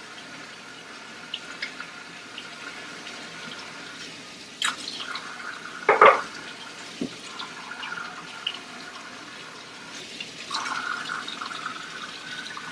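Tap water running into a kitchen sink while cups and water bottles are hand-washed. A few knocks of the cups against the sink come through, the loudest about six seconds in.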